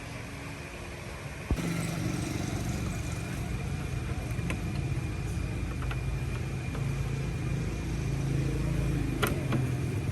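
A vehicle engine starts abruptly about a second and a half in, then runs steadily at an even idle, with a few light ticks over it.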